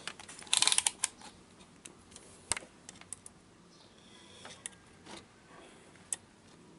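A quick run of light clicks about half a second in, then a few single sharp taps, from a digital multimeter and its test probes being handled against a TV circuit board while the horizontal output transistor is checked for a short.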